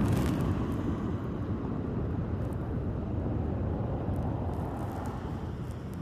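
Sea surf breaking and washing on the shore: a steady, deep rush that slowly eases off.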